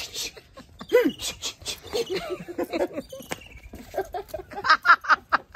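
People talking and laughing while a puppy tugs at a rubber slipper. A run of short, high squeaks comes near the end.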